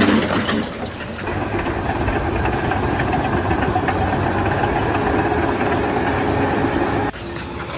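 A large engine running steadily, breaking off abruptly about seven seconds in.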